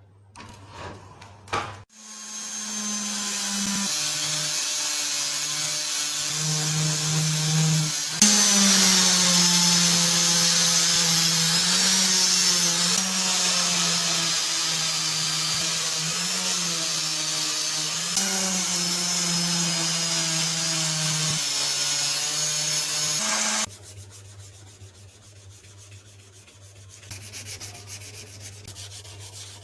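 A power tool's motor runs for about twenty seconds over a loud hiss, its hum sagging and recovering in pitch as it is pressed into the work. It cuts off suddenly, leaving quieter rubbing.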